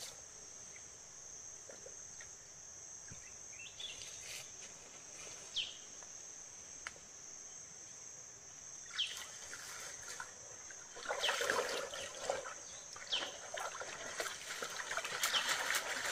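A steady high-pitched drone of insects over quiet outdoor ambience, with a few faint short chirps. About eleven seconds in, louder irregular splashing and rustling in shallow water begins and continues.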